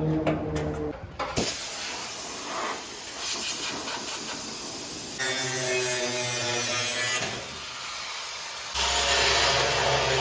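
Metal-cutting work on a steel panel: a loud steady hiss that changes abruptly a few times, with a low hum at some points, after a short tail of background music.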